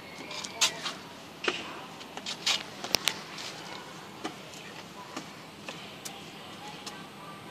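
Scattered short, sharp taps and clicks over faint steady background noise, the loudest a close pair about three seconds in.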